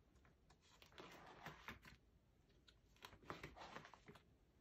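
Faint rustling and crinkling of plastic binder sleeves as photocard album pages are turned, in two short spells.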